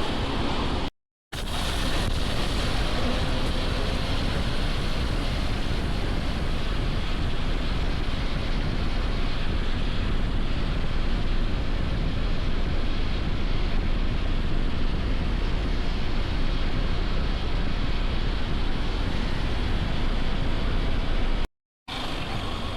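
Steady wind rush on the microphone of a moving Hero XPulse 210 motorcycle, with road and engine noise underneath. Two short breaks of dead silence, about a second in and near the end, where the footage is cut.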